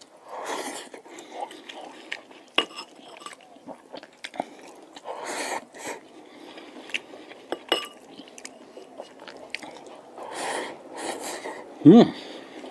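Close-up mouth sounds of a person eating rice pilaf by hand: open-mouthed chewing with many wet lip smacks and clicks. A short hummed 'mm' of enjoyment near the end is the loudest sound.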